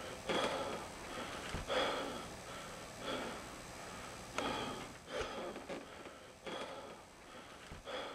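A man breathing heavily: ragged, audible breaths in and out, roughly one every second or so.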